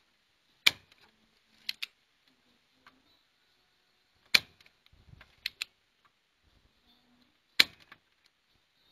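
Spring-loaded solder sucker (desoldering pump) firing three times, each a sharp snap about three and a half seconds apart, with lighter paired clicks in between, as solder is drawn off the pins of an STK amplifier IC.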